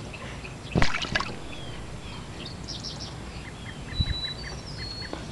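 Birds chirping with short high notes, and a brief splash in a shallow inflatable baby pool about a second in. A soft low thump comes near four seconds.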